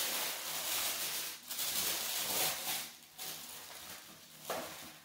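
Packaging in a beauty subscription box rustling and crinkling in uneven swells as it is handled and unpacked, quieter after about three seconds, with a short knock about four and a half seconds in.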